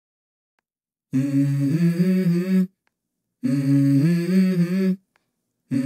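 Near silence for about a second, then a voice from the background song humming or singing wordless phrases. There are two phrases of about a second and a half each, stepping up and down in pitch, and a third begins near the end.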